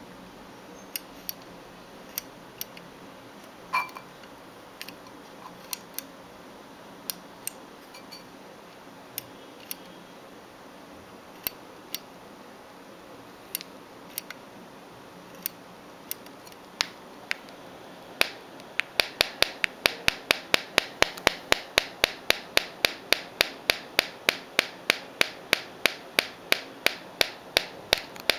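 Objective 2 (O2) headphone amplifier with discharged batteries putting out clicking distortion over a steady hiss. The clicks come about once a second at first, then from about two-thirds of the way in they become a fast, regular ticking of about three to four a second.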